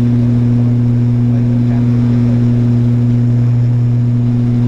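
Fokker 50 turboprop engine and propeller running with a steady, unchanging drone, heard from inside the cabin beside the engine: a loud, deep hum with a strong steady pitch.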